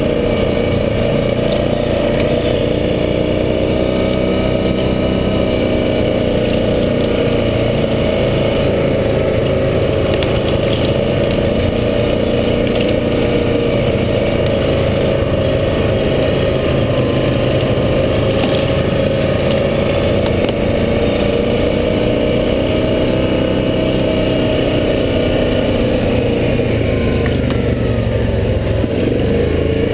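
2014 Yamaha Grizzly ATV's engine running steadily as it is ridden along a dirt trail, its pitch rising and falling gently with the throttle.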